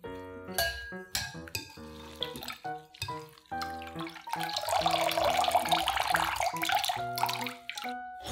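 Water running from a tap for about three seconds, starting a little after four seconds in, over background music with piano notes.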